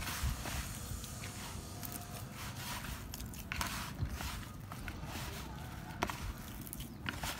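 Hands kneading and squeezing damp fishing-bait mash of bran and banana, with irregular soft squishing and a few sharp clicks.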